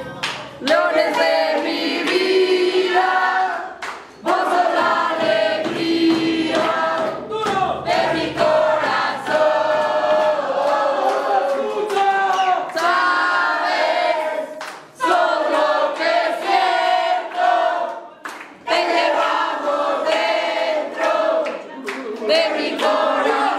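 A group of supporters singing a chant together in sung phrases a few seconds long, with short breaks between them and sharp hits scattered through.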